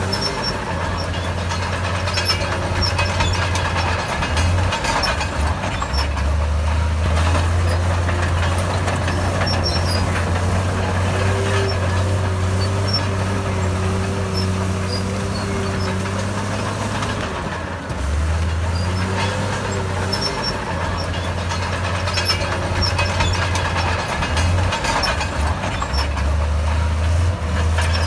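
Komatsu D68B bulldozer's diesel engine running steadily with a deep hum, easing briefly about two-thirds of the way through before picking up again.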